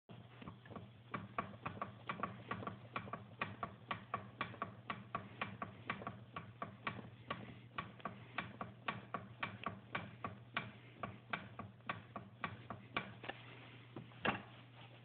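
800 E-TEC two-stroke engine idling with a steady hum and a regular ticking knock, about three a second, with one louder knock near the end. The owner wonders whether the knock is piston slap.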